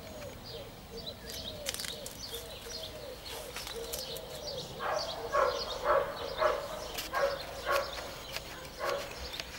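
An animal calling in a quick series of short, sharp calls, about two a second, starting about five seconds in, over faint high bird chirps.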